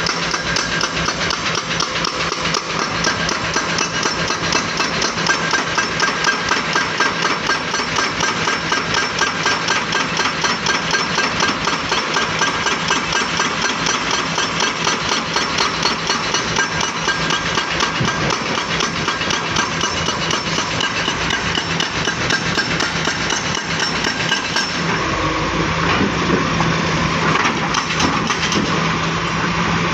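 Volvo excavator working, its diesel engine running under a fast, even train of metallic knocks. About 25 seconds in the knocking largely stops and the engine's low hum comes up.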